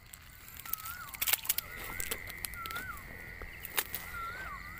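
Short rising-and-falling chirping calls of a small night animal, repeated about twice a second, with a steady high-pitched tone joining about two seconds in. A few sharp clicks and crackles, like footsteps in dry grass, sound over them.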